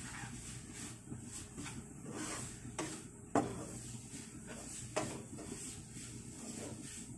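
Wooden spatula scraping and stirring grated coconut around a nonstick frying pan, the coconut being cooked until fairly dry. Short scrapes with a few sharp knocks of the spatula against the pan, the loudest about three and a half seconds in and another at five seconds.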